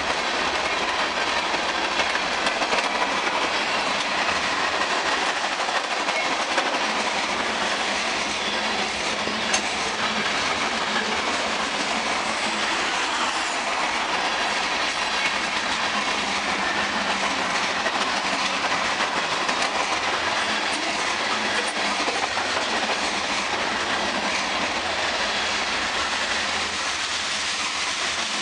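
Freight cars rolling past close by: a steady rumble of steel wheels on rail with the clatter of the cars' trucks, holding at one level throughout.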